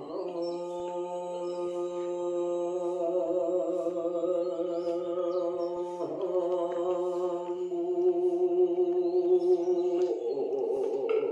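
A Buddhist monk chanting yeombul in a clear voice, drawing out long sustained notes: one held for about six seconds, a brief break and change of pitch, then another long note that wavers near the end.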